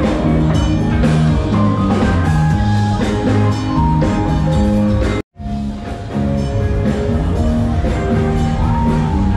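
Loud music with drums and a steady beat, cutting out completely for an instant about five seconds in.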